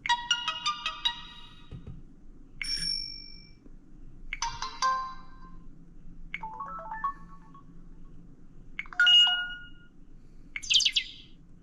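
Samsung Admire phone's built-in text-message notification tones playing one after another through its speaker: six short chimes and jingles, each a different little melody, about two seconds apart.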